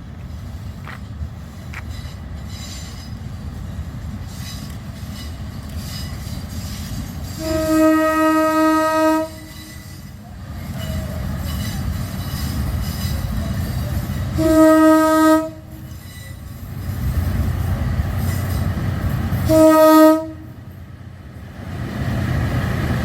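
KiHa 183 diesel railcar sounding its horn three times: a long blast, a shorter one, then a brief one. Under the blasts runs the steady rumble of the train running on the rails.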